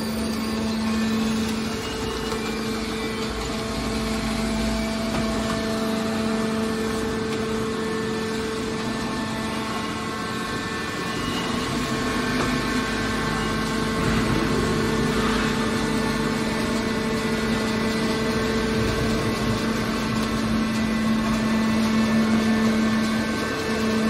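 Hydraulic power unit of a scrap steel baler running, a steady machine hum that holds one pitch.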